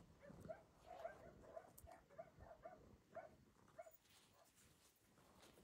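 Faint barking of a dog, short barks at about three a second that stop about four seconds in.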